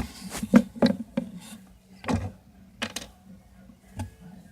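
Handling noises: irregular light clicks and knocks as small plastic toy figures and props are moved about by hand.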